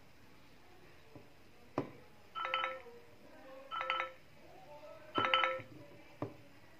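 iPhone 12 Pro Max speaker playing three short chiming ringtone previews, about a second and a half apart, from its Sounds & Haptics settings. There is a sharp click before the first and another after the last.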